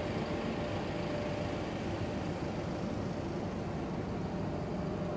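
Ferry engines running with a steady low drone, under a faint steady hum.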